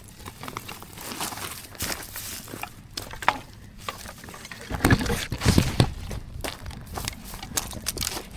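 Irregular rustling and clicking, with a cluster of heavier low thumps about five seconds in, like footsteps and hands working over dry ground and twigs.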